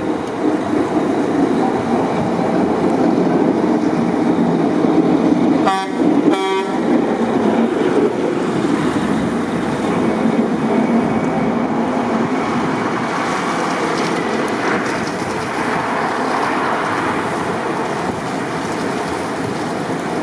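Two short car-horn toots about half a second apart, over a steady rush of wind and traffic noise.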